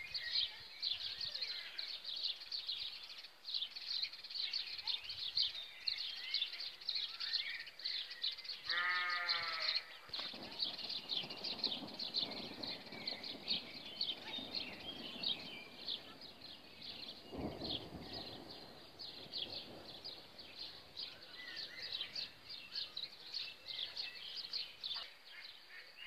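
Small birds chirping rapidly and without a break, with one long, quavering bleat from a farm animal about nine seconds in. A faint low rumble runs through the middle of the stretch.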